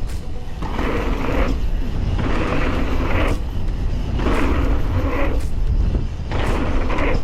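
A mountain bike riding a dirt jump line: wind rumbling steadily on the microphone, with knobby tyres on dirt swelling and fading about every two seconds as the bike rolls over the tables.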